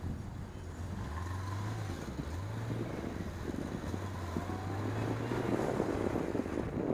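Motorcycle engine running while the bike threads slowly through traffic. It revs up twice in quick rising sweeps about one and two and a half seconds in, then holds a steady note. Rushing wind noise grows louder near the end.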